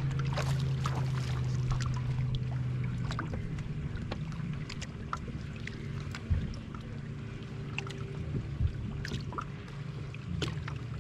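Boat motor humming low and steady, easing off after about three seconds, with splashes and knocks against the boat as a bass is netted and handled aboard; the loudest knock comes about six seconds in.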